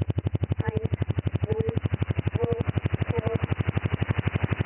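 Shortwave numbers station G06 heard in upper sideband: a faint synthetic female voice reading out digits in German, almost buried under loud pulsed interference that buzzes about ten times a second.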